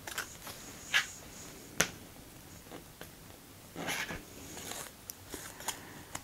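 Quiet handling sounds of a foam brush putting white glue onto paper petals: two sharp little clicks in the first two seconds, a soft brushing swish about four seconds in, and a few light ticks.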